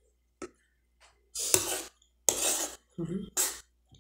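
Metal fork scraping and scooping couscous on a plate: three short scrapes about a second apart, with a light click about half a second in.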